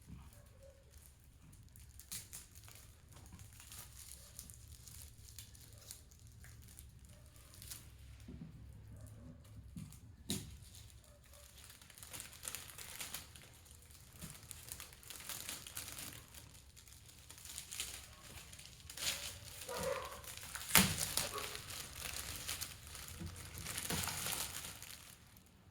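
Plastic packaging crinkling and rustling as it is handled, with many scattered sharp clicks and taps. The rustling grows denser and louder in the second half, and the loudest click comes about three-quarters of the way through.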